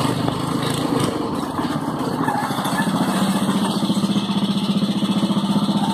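Go-kart's small engine running under way, then settling into a steady, evenly pulsing idle about halfway through.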